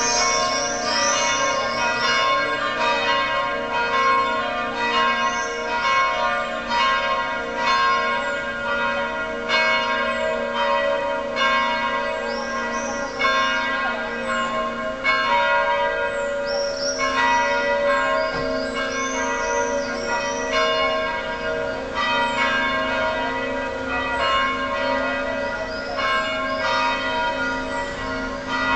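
Church bells ringing on and on, a quick run of overlapping strikes that keep sounding. High, gliding bird calls come over the bells now and then.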